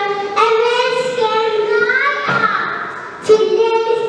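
A young girl's voice reciting a poem through a microphone in a sing-song, drawn-out way, the words stretched into held, gliding notes. Her voice dips about two and a half seconds in, then comes back with a sharp, loud start on the microphone a little after three seconds.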